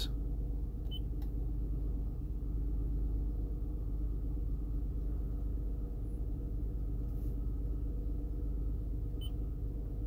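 Steady low hum of the climate-control blower running in the cabin of a 2006 Lexus RX400h hybrid, with no gurgling or clicking from under the dash: in these face and bi-level airflow modes the fault noise, suspected to be a failing air-mix or mode-door servo motor, is absent. A couple of short faint beeps come about a second in and near the end as the touchscreen mode buttons are pressed.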